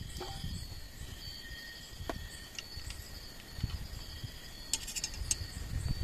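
Night insects, crickets, trilling steadily over a low rumble, with a few small clicks and a short metallic rattle about five seconds in as a stainless steel hip flask's cap is unscrewed.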